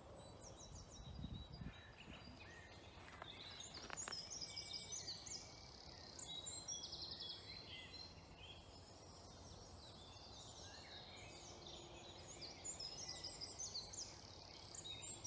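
Faint dawn chorus of woodland songbirds: several birds singing at once, with overlapping high phrases and trills answering one another.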